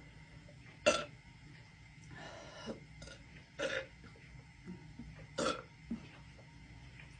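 A woman burping three times: a short, loud burp about a second in, then two more around the middle, with softer sounds between them.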